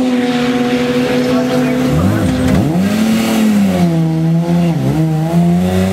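BMW E36 M3 race car's straight-six engine running in the pit lane, its pitch rising and falling with a rev about two seconds in and dipping briefly near the end, with more than one engine audible.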